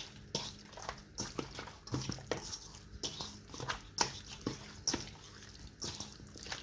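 Raw chicken drumsticks being massaged by hand with olive oil: irregular wet squelches and slaps of oily skin, a few every second.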